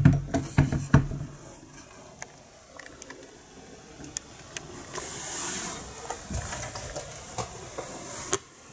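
Handling noise from a folding camping table's aluminium leg frame: a few knocks in the first second as a hand works the legs, then scattered light clicks and a soft rustle about halfway through.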